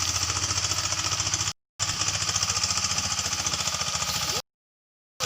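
Engine running steadily with a fast, even beat, cut twice by abrupt dropouts to silence: a short one about a second and a half in, and a longer one near the end.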